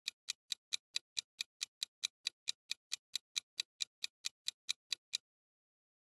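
Countdown-timer ticking sound effect: an even, clock-like tick about four to five times a second that stops abruptly about five seconds in.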